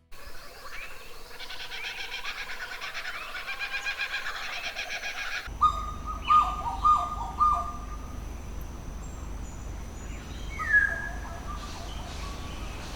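Wild birds calling: first a dense, rapid twittering, then after an abrupt change about five seconds in, a run of louder descending whistled calls and one loud single call near the end.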